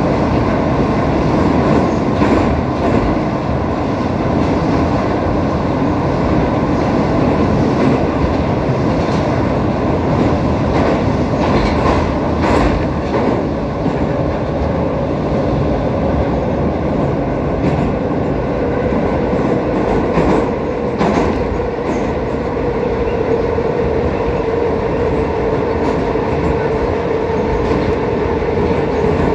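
Metro train running at speed through a tunnel, heard from inside the car: a steady, loud rumble with a few clicks of wheels over rail joints. A steady whine comes in about two-thirds of the way through.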